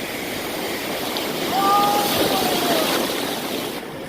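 Ocean surf washing in, swelling about a second and a half in as a wave comes through; a faint voice calls out in the middle.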